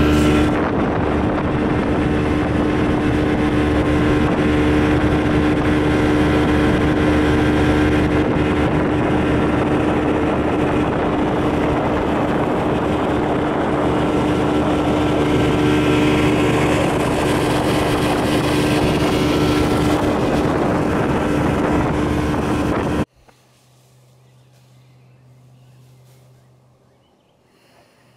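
Boat's outboard motor running steadily at cruising speed, with wind and water rushing past the hull. The sound cuts off suddenly near the end, leaving only a faint low hum.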